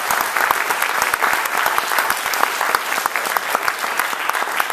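Audience applauding, with dense, steady clapping.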